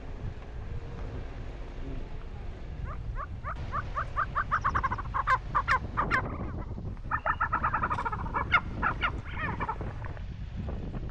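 Tibetan snowcock calling: a run of quickly repeated notes starting about three seconds in, a brief break, then a second, denser run that ends near the close, over a low rumble of wind on the microphone.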